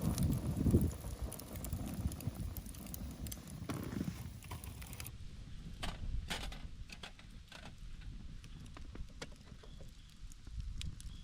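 Low rumbling noise for the first few seconds, then scattered light clicks and knocks.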